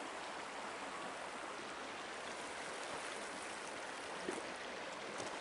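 Mountain creek flowing: a steady, even rush of water.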